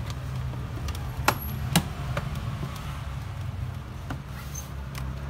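Plastic bottom cover of an Acer Aspire 3 laptop being fitted back on by hand: a scattering of sharp clicks and taps, the two loudest about a second and a half in, over a low steady hum.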